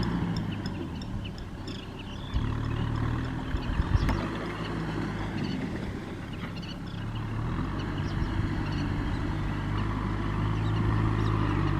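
Tractor diesel engine running under load while ploughing through mud, its pitch and loudness rising and falling.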